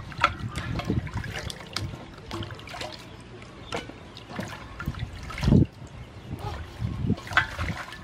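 Hands washing pumpkin pieces and amaranth greens in a large aluminium basin of water: irregular splashing and sloshing, with water trickling off as the greens and lemongrass are lifted out. A dull thump a little past halfway is the loudest sound.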